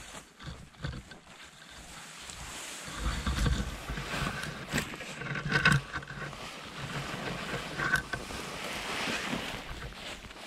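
Bracken fronds swishing and rustling against legs and camera while wading on foot through dense ferns, with footsteps and a few sharper snaps of stems near the middle.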